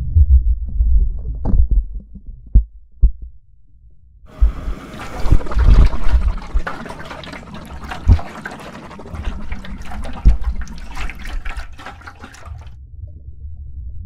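Lake water splashing and churning right at the lens of a camera sitting at the water's surface. For the first few seconds there are muffled low thumps and gurgles. From about four seconds in comes loud splashing, which dies back to a low rumble near the end.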